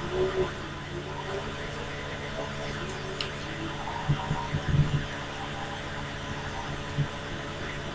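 Steady low mechanical hum of background noise, with a few faint soft bumps around the middle and near the end.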